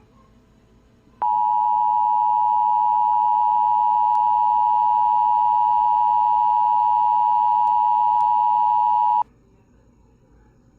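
Emergency Alert System attention signal: a loud, steady electronic alert tone that starts sharply about a second in, holds unchanged for about eight seconds and cuts off abruptly.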